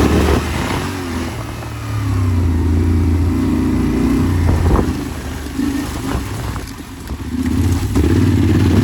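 Yamaha Ténéré 700's parallel-twin engine under a rider off-road, the throttle opening and closing so the engine note swells and eases several times. It dips about two-thirds through, then pulls hard again near the end, with a single knock about halfway.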